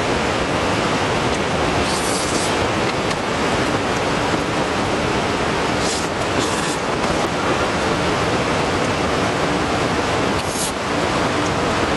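Heavy rain pouring steadily in a dense, even hiss, with a few brief sharper hisses about two, six and ten seconds in.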